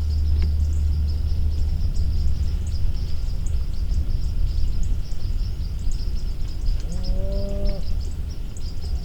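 A drawn-out, moo-like animal call, about a second long, near the end; it glides up briefly and then holds one pitch. Under it runs a steady low rumble and a thin high-pitched trill.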